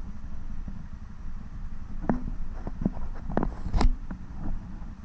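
Honda Africa Twin's parallel-twin engine idling as a low steady rumble. Between about two and four seconds in, a cluster of clicks and knocks comes from hard plastic parts handled close by.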